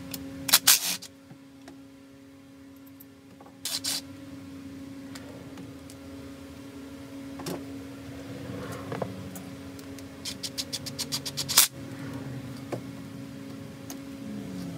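A cordless drill-driver and socket taking bolts out of an engine case, heard as a few short, loud rattling bursts. Near the end there is a quick run of about eight sharp clicks. A steady low hum runs underneath.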